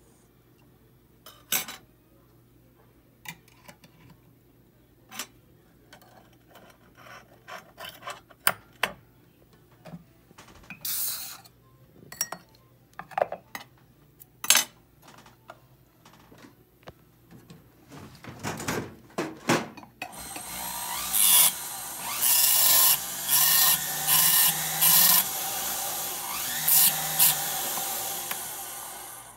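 Scattered clicks and knocks of small tools and metal being handled. About two-thirds of the way in, a jeweller's rotary tool with an abrasive disc starts running and grinds against a 14kt gold bangle in repeated surges.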